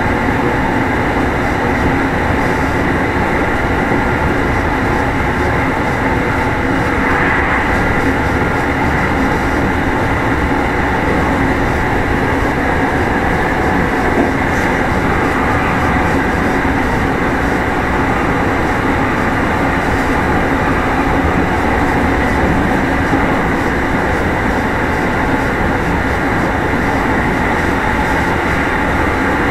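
Running noise of a Meitetsu 1000 series motor car, Mo 1066, heard from inside the car as it travels at a steady speed: wheels on the rails and the traction motors running without a clear rise or fall in pitch.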